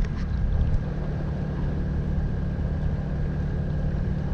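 Bavaria 41 sailboat's inboard diesel engine running steadily at low speed, a constant low hum, as the boat motors under power with its sails down.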